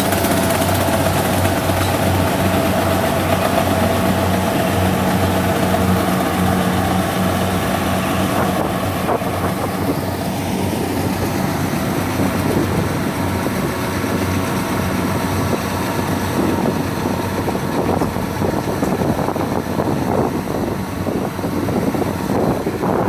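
Kubota DC70 rice combine harvester's diesel engine running steadily while harvesting, an even hum that grows rougher and less even after about fourteen seconds.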